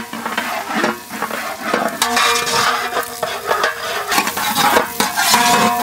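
Curry leaves crackling and sizzling as they drop into hot sesame oil with frying onions in a large brass pot, while a long ladle stirs and clinks against the metal.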